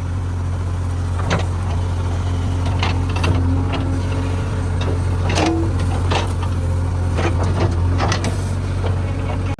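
JCB 3DX backhoe loader's diesel engine running steadily under work, with scattered knocks and clanks about every second or two.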